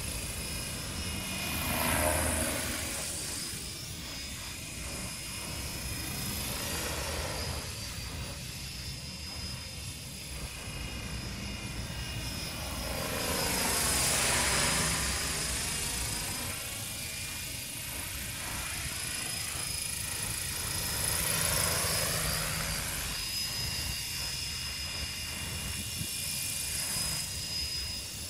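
Home-built electric radio-controlled coaxial helicopter with 1.1 m counter-rotating rotors in flight: a steady rotor whir with a high electric motor whine, swelling louder three times as it passes close, loudest around the middle.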